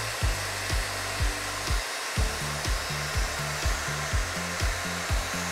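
A TIGI Bed Head hair dryer runs steadily with an even airy hiss, blowing hot air onto a small paint jar to loosen a lid stuck with dried paint. Background music with a kick drum about twice a second and a bass line plays over it.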